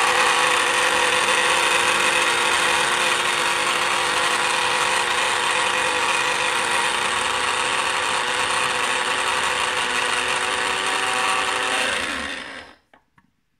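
Rommelsbacher EGK 200 electric blade coffee grinder running steadily as it grinds the coffee again for a finer grind. About twelve seconds in it is switched off and the motor spins down with a falling whine, followed by a couple of faint clicks.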